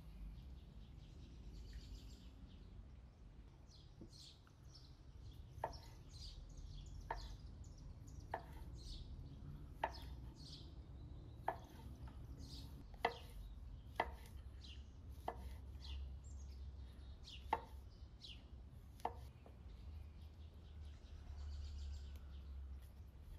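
Kitchen knife slicing mushrooms on a wooden cutting board, each cut a sharp knock on the board, about one a second, starting a few seconds in and stopping a few seconds before the end. Birds chirp in the background.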